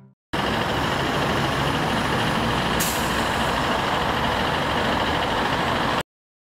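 Road traffic noise: a steady rush of tyres and engines from vehicles on the road, with a brief high hiss about three seconds in. It starts and cuts off abruptly.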